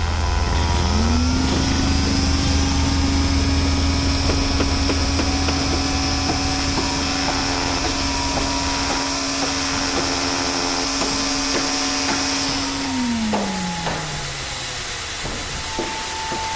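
Machine noise: a motor spins up about a second in, runs at a steady pitch, then winds down near the end. Under it runs a low engine rumble that fades about halfway through, with scattered knocks.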